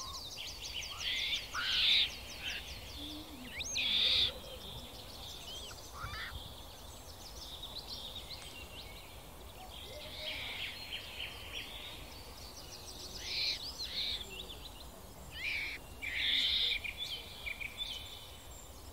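Birds chirping and calling: short whistled calls and chirps, with a fast high trill in the first second or so, over a faint steady hiss.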